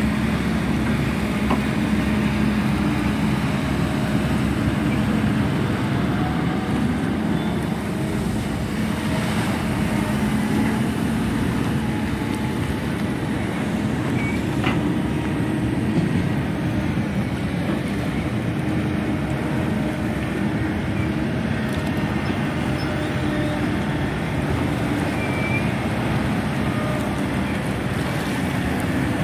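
An engine running steadily, a constant low drone, over a steady rushing noise.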